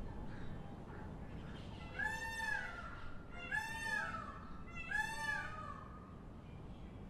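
An animal calls three times, about a second and a half apart. Each call is loud and drawn out, and rises then falls in pitch.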